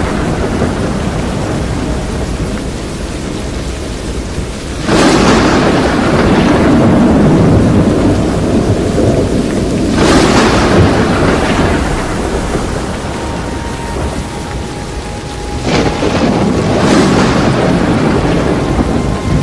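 Tornado storm noise: a continuous roar of wind and rain over a low rumble, swelling suddenly louder about five, ten and sixteen seconds in.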